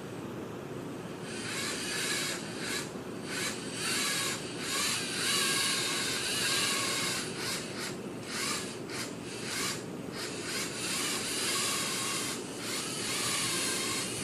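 Small geared electric motors and plastic drivetrains of LEGO Mindstorms NXT robots running with a whirring hiss. The sound starts about a second in, then cuts out and resumes repeatedly as the robots stop and go.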